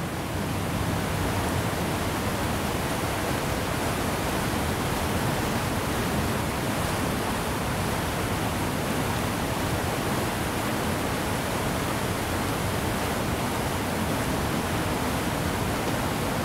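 Steady rushing of water pouring over a dam's spillway weir, an even hiss-like roar that cuts off abruptly at the very end.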